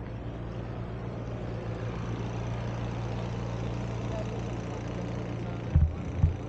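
An engine idling, a steady low hum, over outdoor city noise, with two dull low thumps near the end.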